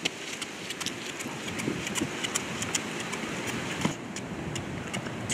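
Quick running footsteps, sneakers slapping on a concrete sidewalk about four or five times a second, over a steady hiss of wind.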